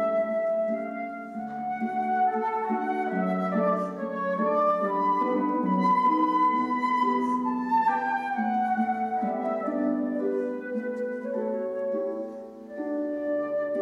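Live flute and concert harp duet: the flute plays a slow melody of held notes over the harp's plucked accompaniment. The melody climbs to its highest note about midway, then falls back.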